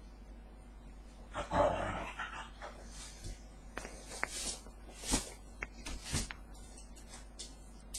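A dog gives one short, rough vocal sound about a second and a half in, followed by a scatter of knocks and scuffling clicks as it plays frantically after a bath.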